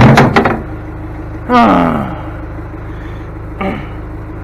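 Engine idling steadily, with a loud quick run of knocks and clanks right at the start. About a second and a half in, a man's falling groan-like exclamation, and a brief short cry near the end.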